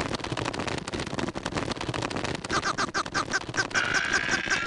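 Cartoon sound effects for a pinned larva: a fast scratchy rattle throughout, and from about halfway a run of short, nasal, squeaky cries that come faster and run into a held squeal near the end.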